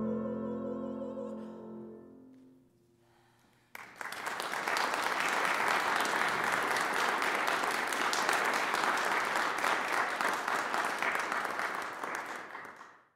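A soprano's final note over a grand piano chord, dying away over the first two seconds or so. After a short hush, audience applause starts about four seconds in, holds steady, then fades out near the end.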